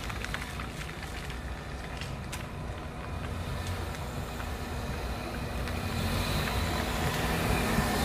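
Nissan car approaching along a wet road, its engine and tyre noise growing steadily louder as it comes up close to the microphone near the end.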